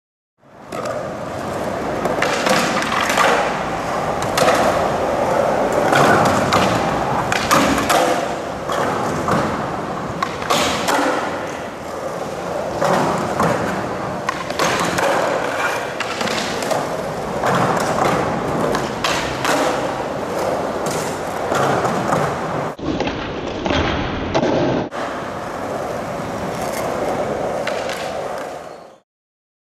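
Skateboard wheels rolling on concrete, with repeated sharp clacks and thuds of the board popping and landing.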